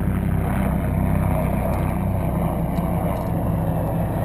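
Ultra4 race car's engine running steadily, a constant low mechanical drone with no change in speed.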